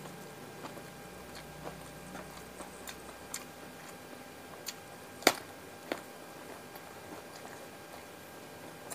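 Close-miked eating sounds: scattered small wet mouth clicks while chewing, then a sharp crunch about five seconds in and a smaller one just after, as a raw round eggplant is bitten.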